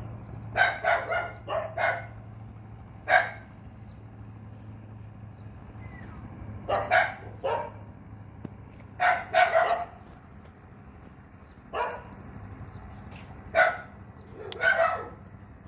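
A dog barking repeatedly in short runs of several barks, with pauses of a second or more between runs.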